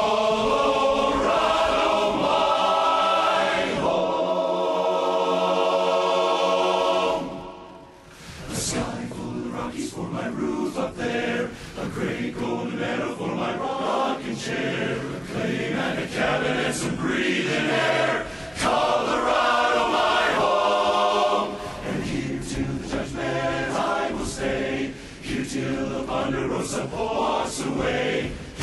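A cappella barbershop chorus singing in close harmony. A full chord is held for about seven seconds, dips briefly, then the chorus moves into faster, more rhythmic singing with sharp accents.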